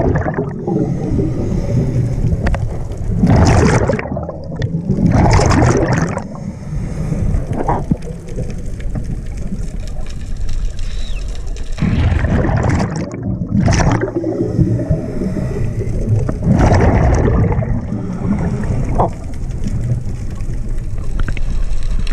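Scuba diver's exhaled bubbles from a regulator, rushing and gurgling past the underwater camera in bursts a second or two long every few seconds, over a steady low rumble.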